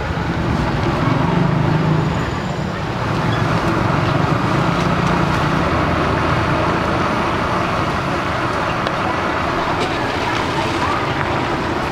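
Chicken pieces deep-frying in a large wok of bubbling oil, a steady dense sizzle, over street traffic with a low engine hum in the first few seconds.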